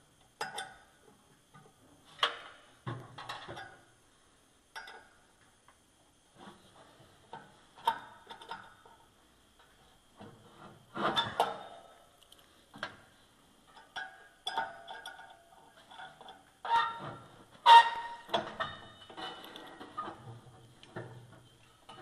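Hand tools clinking and scraping on a furnace blower wheel's metal hub and motor shaft as its set screws are tightened, in irregular knocks with short squeaks, the loudest a little over halfway through.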